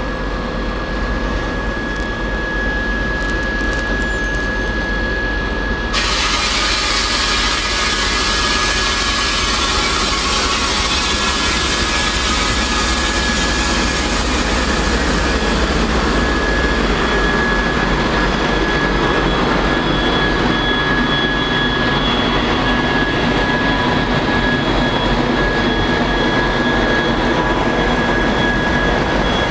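TEP70BS diesel passenger locomotive moving slowly past, its 16-cylinder diesel engine running steadily with a high whine. The sound gets louder and hissier about six seconds in.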